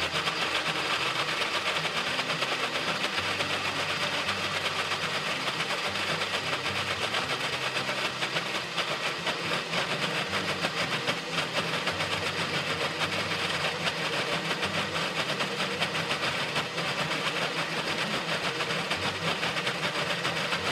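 Countertop blender running steadily at speed, pureeing cooked, softened apples and spices into smooth apple butter.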